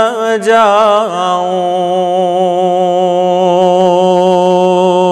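A man singing an Urdu nasheed, unaccompanied. An ornamented, wavering phrase leads into one long held note with slight vibrato, which breaks off at the very end.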